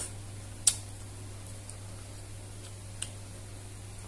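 Metal chopsticks and spoon clicking against a clay pot while eating noodles: one sharp click a little under a second in, a fainter one about three seconds in, and a few faint ticks between, over a steady low hum.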